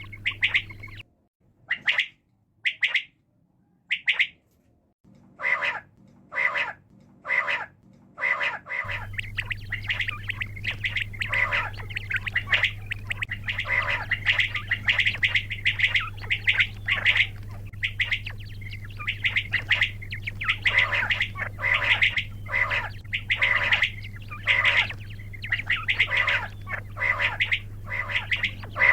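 A bird calling over and over in short, harsh calls: a few spaced calls at first, then about nine seconds in a rapid, nearly continuous run of calls. A steady low electrical hum lies underneath, except for a stretch near the start.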